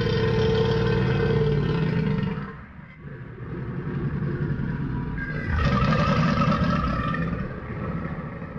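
Large crocodile giving deep, growling roars: one long roar that dies away about two and a half seconds in, then a second that swells and holds for several seconds before fading out near the end.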